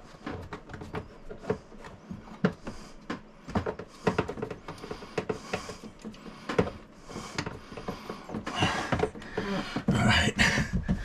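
Scattered clicks and knocks of hand tools and plastic parts being handled at a toilet while a fitting is worked loose, with a louder rustling near the end.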